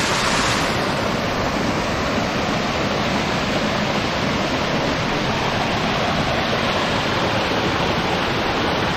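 Shallow mountain stream running over rocks and small cascades: a steady, even rush of water.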